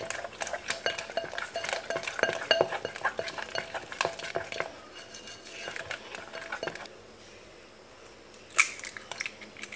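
Spatula stirring batter in a bowl: quick, rapid clicks and scrapes against the bowl while an egg is beaten into creamed butter and sugar. The stirring slows and thins out after about five seconds. A single sharp knock comes near the end.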